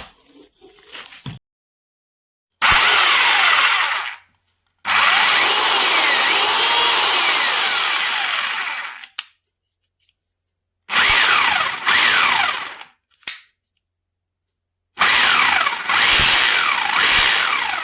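26 mm rotary hammer drill switched on and off in several bursts of one to four seconds, its motor whine falling in pitch as it coasts down after each release.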